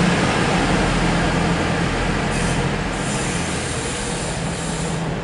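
East Midlands Railway Class 222 Meridian diesel multiple unit moving through the station, its underfloor diesel engines giving a steady drone that slowly fades.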